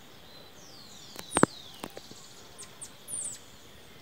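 Small birds chirping in the trees, with short high calls that slide quickly downward, several in a cluster about three seconds in. About a second and a half in there is one sharp, loud click, with a few fainter ones around it.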